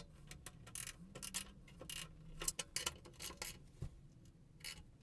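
Ratchet wrench clicking in short, irregular runs as screws are driven into the underside of a wooden tabletop.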